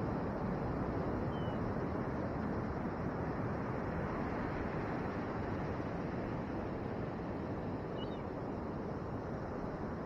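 Steady rush of ocean surf breaking on the beach, mixed with wind on the microphone. Two faint, brief high bird calls, about one and a half and eight seconds in.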